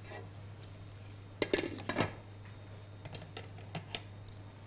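A metal spoon clinking and scraping against a bowl and pan as cooked rice is pressed into a serving bowl: a cluster of clinks about a second and a half in, then a few lighter taps near the end.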